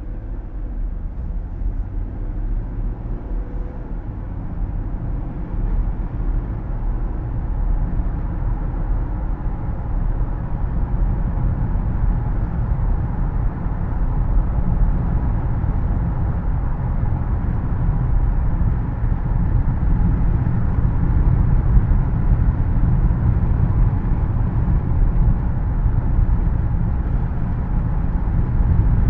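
Car driving on a road, heard from inside the cabin: a steady low road rumble with the air conditioning blowing, growing gradually louder.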